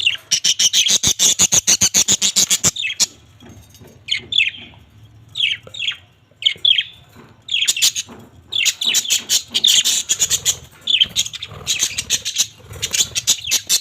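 Pet parrots chirping: a fast run of sharp, high chirps for the first three seconds, then short chirps coming in quick clusters.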